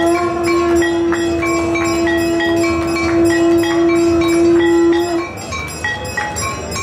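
A conch shell blown in one long steady note, which stops about five seconds in, over continuous rhythmic ringing of temple bells, about two strikes a second.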